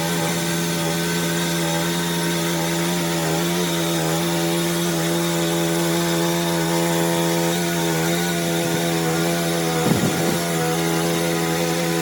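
A motor running steadily at an unchanging pitch, with a brief rougher disturbance about ten seconds in.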